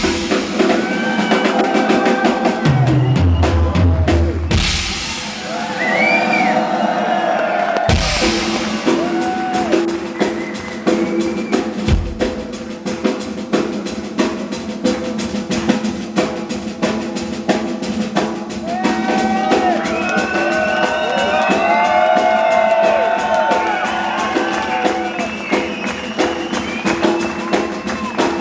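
Rock music driven by a drum kit played fast and dense: rapid snare and bass-drum strokes, with bending melodic lines over them.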